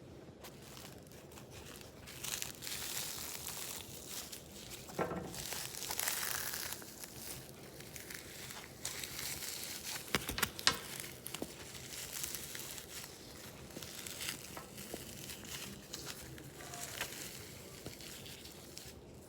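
A frozen foam squishy toy squeezed in the hands through a paper towel, giving an irregular crinkling and crackling as the frozen surface is worked. There are a few sharper cracks about ten seconds in.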